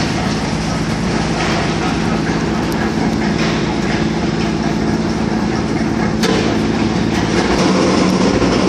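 Heavy engine or machinery running steadily: a constant low drone with a wash of mechanical clatter over it. One sharp click about six seconds in.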